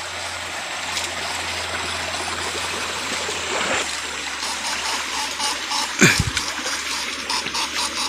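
Shallow rocky stream running and trickling steadily, with a single thump about six seconds in.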